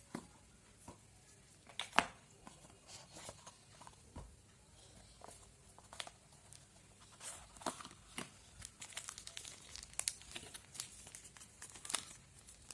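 Packaging being handled while a box is unpacked: scattered clicks and taps, a sharper knock about two seconds in, then a denser run of plastic crinkling and crackling in the second half.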